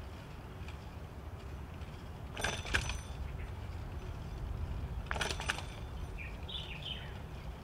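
Outdoor ambience on a bicycle ride: a steady low rumble, two short rattling noises about two and a half and five seconds in, and a few bird chirps soon after the second.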